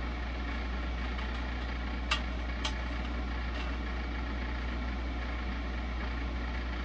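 Steady low mechanical hum of a running motor, with two light clicks a little after two seconds in.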